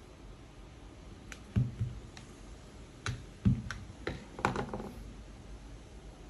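Parts of a Braun hand blender clicking and knocking as it is taken apart: a run of about ten sharp clicks, with two heavier knocks, the louder one about three and a half seconds in.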